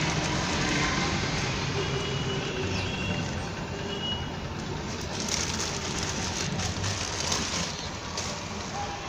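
Steady outdoor background noise, with soft rustling and crackling about halfway through as hands press loose soil around the base of a plant in a cement trough.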